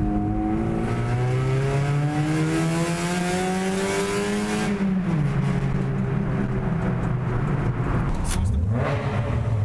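Car engine accelerating hard, its pitch climbing steadily through one gear for about four and a half seconds with loud exhaust and road noise. It drops sharply at an upshift and runs steady in the next gear, then rises briefly again near the end.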